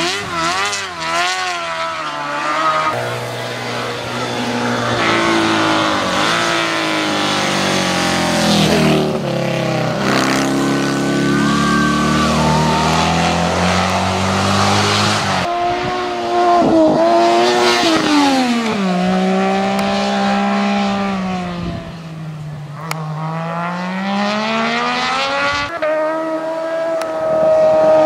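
Racing sidecar engines revving hard as the outfits pass one after another. The engine note climbs and drops again and again through gear changes and lifts for corners, with an abrupt change about halfway through where one pass gives way to the next.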